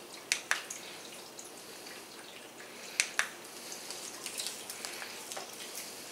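Quiet room tone broken by a few light, sharp clicks: a quick pair just after the start, another pair about three seconds in, then scattered fainter ticks.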